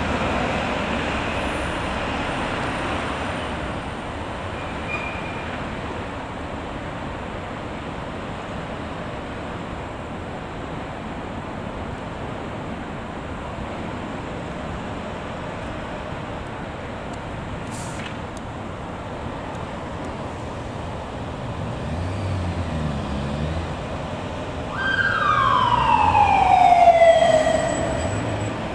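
Steady road and traffic noise, then near the end a police siren sounds once: a loud wail that falls in pitch over about two seconds and stops.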